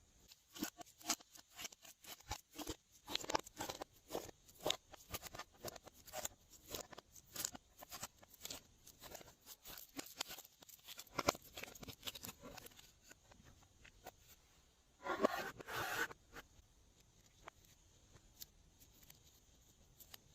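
Glossy slime being worked, a dense run of sticky clicks and crackles with a louder, longer squelch about fifteen seconds in.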